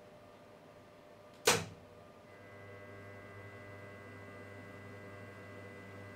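A loud sharp click as the mill's spindle circuit is switched on, then about a second later the spindle motor starts and runs with a steady whine of several tones. Underneath is the low hum of the control enclosure's cooling fans.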